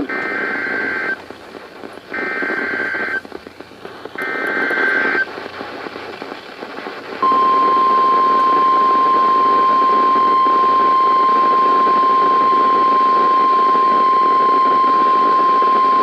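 NOAA Weather Radio emergency alert from weather radio receivers: three one-second bursts of the warbling SAME data header about a second apart, then, about seven seconds in, the steady 1050 Hz warning alarm tone. It is the alert sequence that heralds a special marine warning broadcast.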